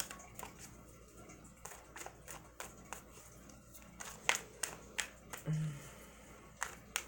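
Tarot deck being shuffled overhand, packets of cards lifted and dropped between the hands: a run of light, irregular card taps and slaps, with a brief low hum a little past the middle.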